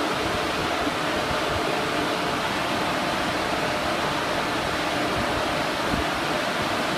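Steady rushing air noise from a rolling-road dyno's cooling fan, holding even throughout with no rise or fall.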